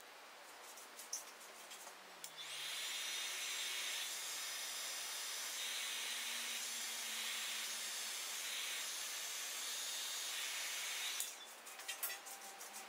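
Heat gun blowing hot air over wet epoxy resin to pop surface bubbles and push the pigment. It starts about two seconds in and cuts off about two seconds before the end, with the hiss swelling and easing a few times as it is moved.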